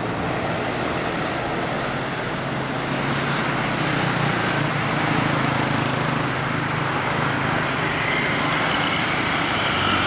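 Tour coach and a car driving on a road: a steady engine hum under continuous road and tyre noise.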